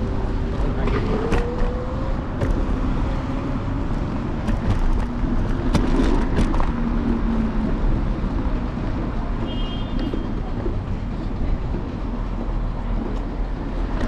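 Apollo Explore electric scooter riding over city pavement, heard from its handlebars: a steady low rumble of wheels and wind, with a few sharp rattles and clicks about halfway through.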